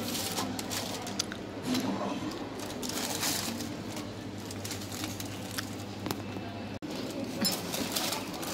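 Café room sound: a low murmur of background voices over a steady hum, with light rustling and a few small clinks as a paper-wrapped sandwich and a Turkish tea glass with a spoon are handled; the clinks gather near the end.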